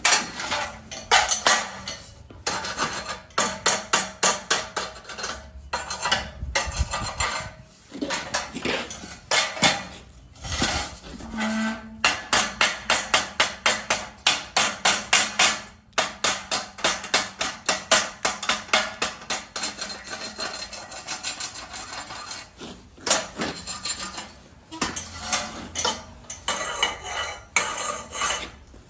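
Hand tools being worked against metal: quick repeated scraping and clinking strokes, about three or four a second, in runs with short pauses.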